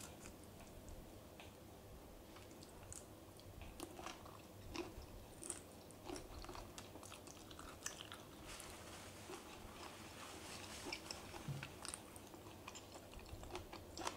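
Faint close-up chewing and biting of a spicy pounded long-bean salad with fresh shrimp: irregular soft crunches and wet mouth clicks.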